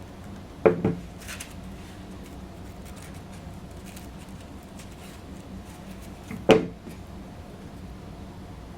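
Two sharp knocks about six seconds apart, each quickly followed by a second, lighter one: something set down on a workbench while parts are handled. Faint ticks and rustles of handling fall between them, over a steady low hum.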